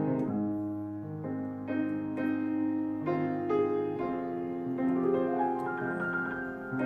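Background music: a piano playing slow, sustained notes, a new note or chord sounding every half-second to a second.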